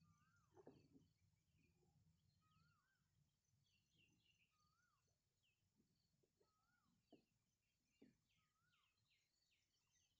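Faint birdsong: one bird repeats a short rising-and-falling whistle about every second and a half, while other birds chirp higher up, with a few soft low knocks.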